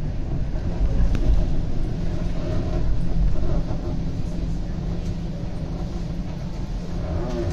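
TTC streetcar running along its track, heard on board as a steady low rumble.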